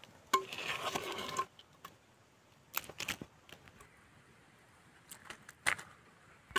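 Handling noise: a short scraping rush about a third of a second in, then a few scattered light clicks and knocks.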